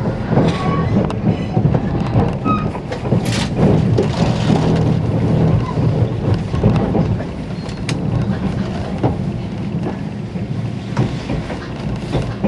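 JR 485-series electric express train running at speed, heard from inside the carriage: a steady rumble of wheels on rail with scattered sharp knocks.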